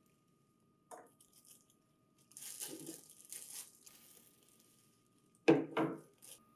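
Plastic packing bag crinkling as parts are unpacked by hand, then two sharp knocks close together near the end as a metal mounting bracket is set down on the tabletop.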